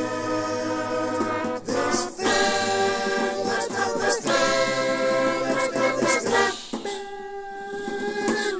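Music of sung voices holding long, steady notes in phrases that change about every two and a half seconds.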